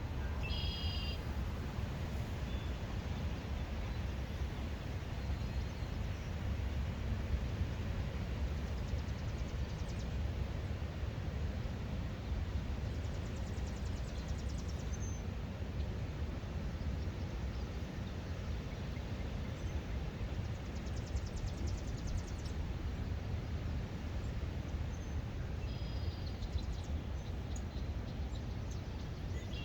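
Outdoor ambience: a steady low rumble with birds chirping now and then, including a few quick high trills.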